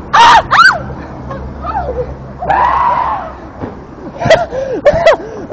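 A girl screaming in fright: two sharp high shrieks right at the start, a longer scream about two and a half seconds in, and short yelps near the end.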